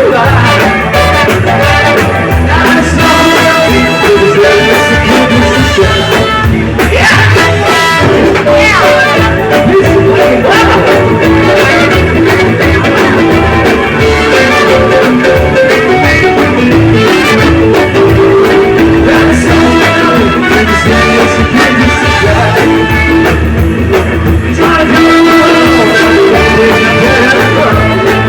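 A live band playing a song, a singer over guitar-led music, loud and steady.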